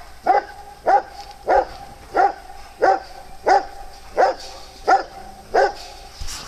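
A dog barking nine times in a steady, even rhythm, about three barks every two seconds.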